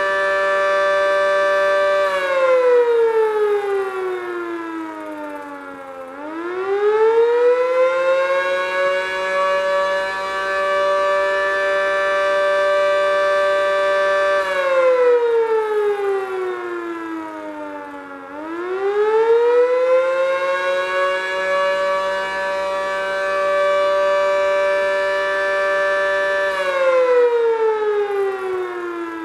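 H.O.R. Siro-Drone fire siren sounding its attack signal, a rough-sounding multi-note wail. The pitch holds for several seconds, slides down over about four seconds, then climbs back up and holds again, about every twelve seconds.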